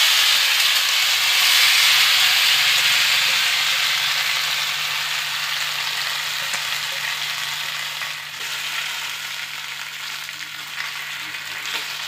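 Paste-coated drumstick (moringa) pods and potato slices sizzling in hot oil in a frying pan just after going in. The sizzle is loud at first and slowly dies down.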